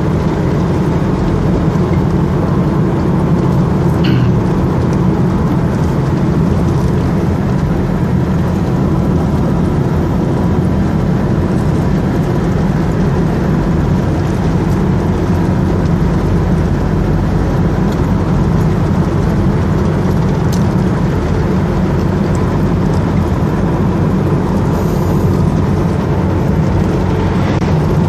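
Steady engine and tyre noise of a car driving along a road at an even speed.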